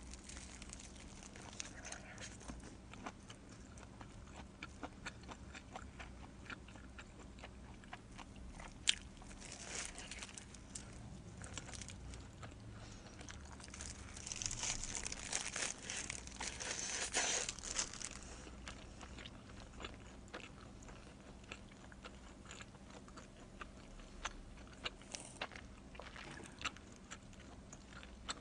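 Close-miked biting and chewing of a pepperoni-and-pineapple pizza slice: soft, wet mouth clicks and crunches of the crust, with a louder stretch of chewing in the middle.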